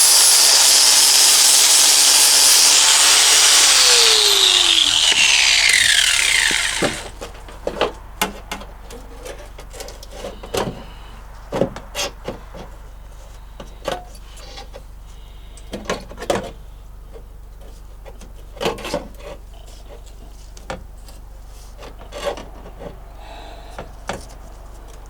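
Power grinder grinding away rusted metal under a truck's rocker panel, then let off and spinning down with a falling whine about five or six seconds in. After that come scattered light knocks and clicks of metal being handled.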